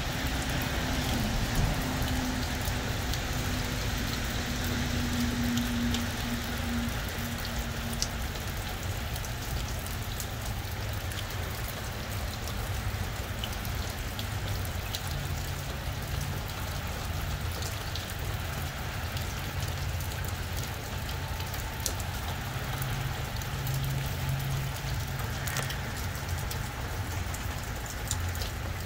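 Steady rain falling, with many close drops ticking and splashing. A low hum comes and goes underneath it.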